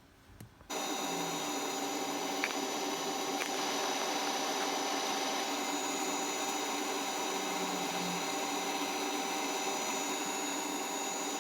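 A steady electric machine hum with a high whine over it, starting abruptly under a second in and holding unchanged.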